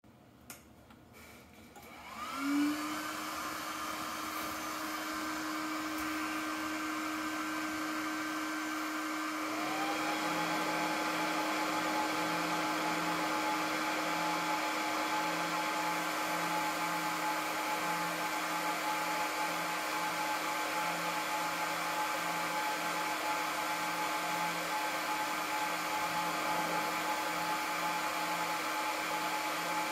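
Aruba S3500-48P PoE network switch powering up from off: after a click, its cooling fans spin up with a rising whine about two seconds in, then a second, higher whine rises about ten seconds in. The fans then settle into a steady whir with a faint pulsing hum.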